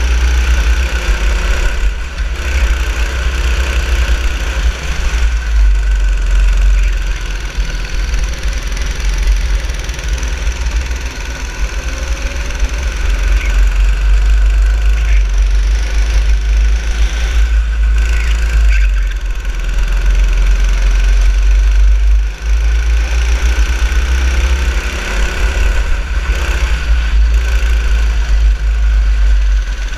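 Go-kart engine running as the kart laps the track, heard from on board, with a heavy steady low rumble throughout and a brief drop in level about three-quarters of the way through.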